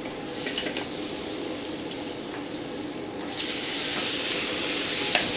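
Italian sausage sizzling in butter and oil in a very hot skillet, a steady hiss that grows louder about three seconds in.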